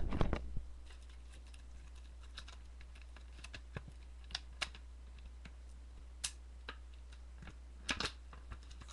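Light handling noise from the plastic packaging of a memory card being worked open: a short rustle at the start, then scattered sharp clicks and ticks, a few in quick pairs. The packaging is hard to open.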